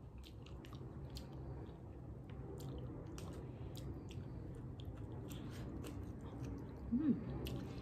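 A person eating artichoke leaves: soft chewing with scattered wet mouth clicks and smacks, over a low steady hum.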